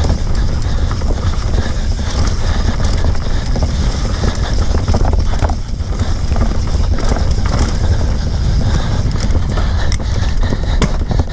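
Mountain bike riding fast down a dirt trail: wind rumbling on the bike-mounted microphone, tyres crunching over dirt and stones, and the bike rattling with scattered clicks and knocks.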